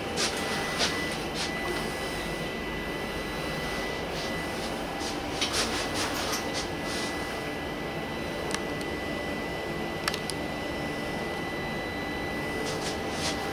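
Steady hum of an air-conditioned railway coach interior, with a thin high whine held through it and a few scattered light clicks and taps.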